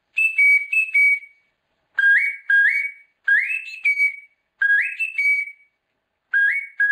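A very small pendant ocarina played: a short tune of high notes in quick pairs, each pair stepping up in pitch, with brief pauses between phrases.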